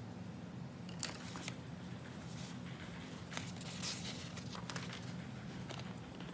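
Sheets of paper being handled and gathered up on a desk: scattered light rustles, taps and clicks, over a steady low hum.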